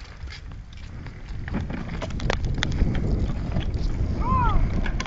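Hard plastic wheels of a ride-on toy tractor rumbling over rough concrete as it is towed behind a bicycle, growing louder about a second and a half in. Wind buffets the microphone, and a brief squeak rises and falls near the end.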